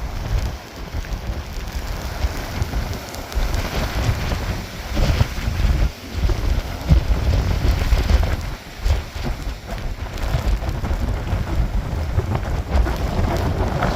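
Gusty storm wind buffeting the microphone, rumbling and surging in uneven gusts over a steady hiss of rain.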